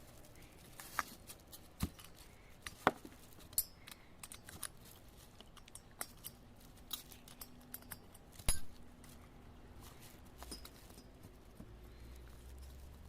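Scattered light clicks, taps and clinks of small hard parts and tools being handled, at irregular intervals, with a sharper knock about 8.5 seconds in.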